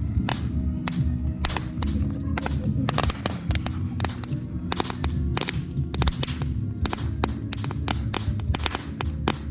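Crackling comet firework cake firing: many sharp cracks and pops, several a second at uneven spacing, over a continuous low rumble.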